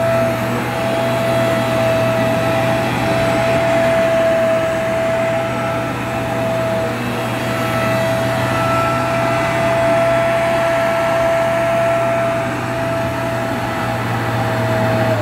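Bissell PowerClean compact carpet washer running loudly, its motor giving a steady high whine over a low hum as it is pushed back and forth over wet carpet.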